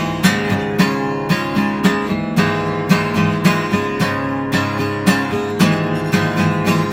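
Acoustic guitar strummed in a steady rhythm, about two chord strokes a second, opening a song.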